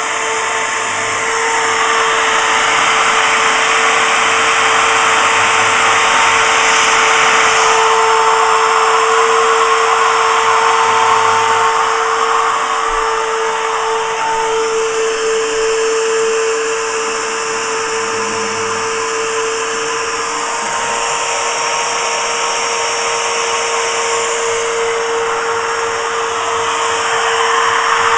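DIY CNC machine's spindle running with a steady whine while its cutter mills 19 mm aluminium, the cutting noise swelling and easing as the tool moves through the cut.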